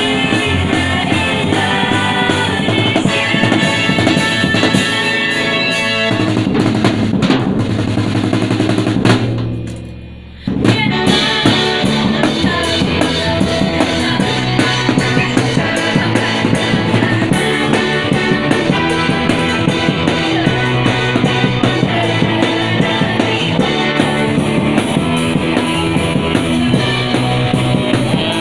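Student rock band rehearsing live: drum kit, electric guitar and bass under a singer's voice. About nine seconds in the playing fades away, and a second band then comes in abruptly at full volume with drums, bass guitar and vocals.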